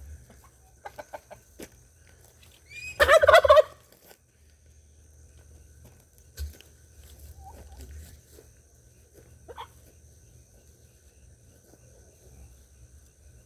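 A turkey gobbles once, a loud rapid warbling call about three seconds in, followed by a few fainter short calls from the birds.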